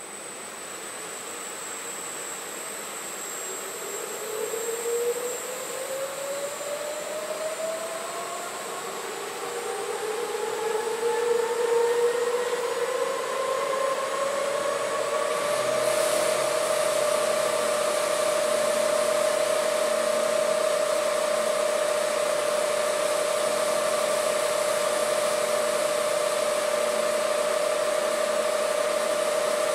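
VAS industrial universal mixer running up in speed while mixing powders: its whine rises in pitch and grows louder over about twelve seconds, then holds steady at full speed with an even hiss from about halfway in.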